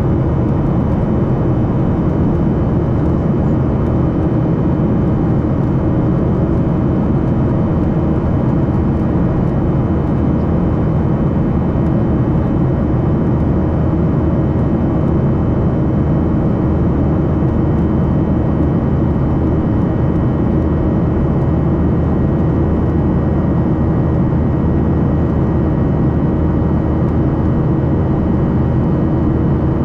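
Steady cabin noise of a Boeing 737-800 in flight, heard from a window seat over the wing: an even rush of airflow blended with the hum of its CFM56-7B turbofan engines, with a few faint steady tones above it.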